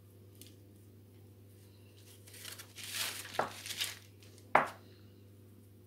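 Thin pastry sheets and baking paper crinkling and rustling as they are folded and handled around a small mould, from about two seconds in, followed by one sharp knock about four and a half seconds in.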